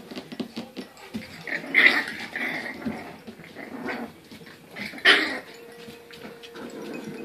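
Olde English Bulldogge puppies growling while they play, with short high-pitched barks about two seconds in and again about five seconds in.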